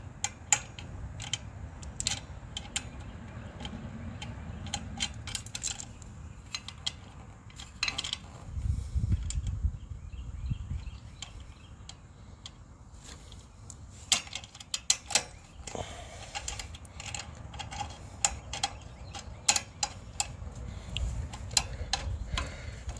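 Scattered small metallic clicks and taps of a bolt and nut being threaded by hand onto a bicycle drum-brake arm to fasten the brake cable, with a low rumble for a couple of seconds near the middle.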